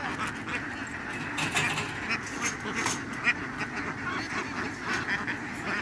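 A large, tightly packed flock of laying ducks quacking, with many voices overlapping in a continuous chatter.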